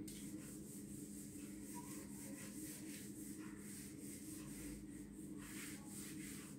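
A cloth rubbing across a whiteboard, wiping off marker writing in a series of repeated strokes, faint over a steady low hum.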